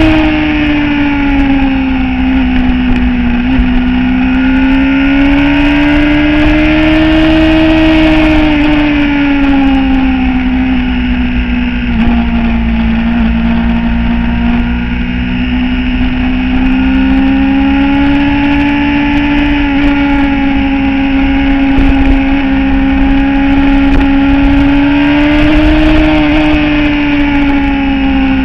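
Motorcycle engine running at road speed, its steady note sinking and rising slowly a few times as the throttle eases off and opens again, with no gear changes.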